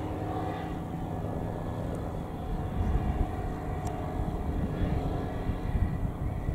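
Single propeller engine of a high-wing microlight aircraft droning steadily in flight, growing louder about halfway through as it passes close.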